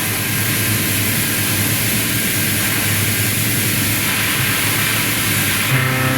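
Hitachi Pico 25 milling cutter face-milling 1.2379 tool steel on a CNC machining centre, with the spindle and cut making a steady, loud, hissing noise. A humming tone comes back in near the end.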